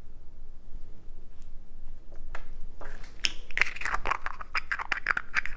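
Small items being handled and set down on a tabletop: a few light clicks, then from about three seconds in a dense run of quick clicks and crackling, like plastic toys and packaging being moved.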